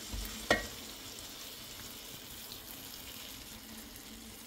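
Hot sugar syrup ladled onto a just-cooked künefe in its metal plate, sizzling steadily and slowly fading. A single sharp clink comes about half a second in.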